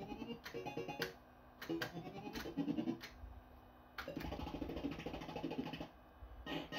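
Barcrest Alphabet fruit machine's electronic sound effects: short runs of stepped beeping tones with brief pauses between them, and sharp clicks scattered through, as the game is played and the reels spin.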